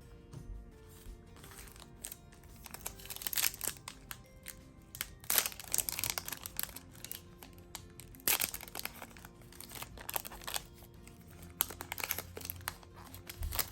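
Foil booster-pack wrapper crinkling and tearing in several short rustling bursts as a trading-card pack is torn open and handled, over soft background music.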